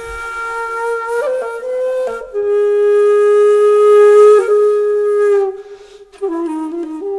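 Background music: a solo flute holding long, breathy notes, sliding between pitches, with a brief pause near the end.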